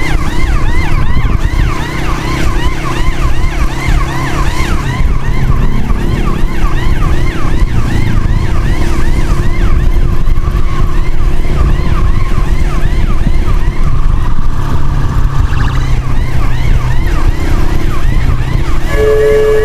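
Emergency siren in a fast yelp, about four falling sweeps a second, over a steady low rumble of engine and wind. The siren fades after about fourteen seconds, and a steady horn note comes in just before the end.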